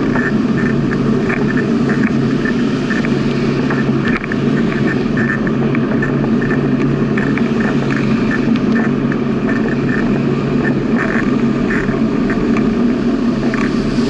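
Steady rolling noise of a bicycle on an asphalt path at about 15 km/h, picked up by a camera mounted on the bike, with small irregular ticks through it.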